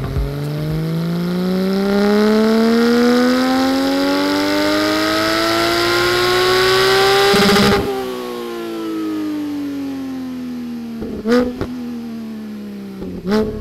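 Porsche 718 GT4's 4.0-litre flat-six, breathing through stock headers, SOUL race over-axle pipes and a race muffler, making a full-throttle dyno pull: the pitch rises steadily for about eight seconds, then the throttle closes abruptly and the engine winds down with falling pitch, with two sharp cracks as it slows.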